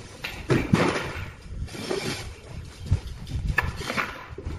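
Irregular knocks, taps and clatter of hands and tools working on a shower cabin's frame and glass panel during assembly.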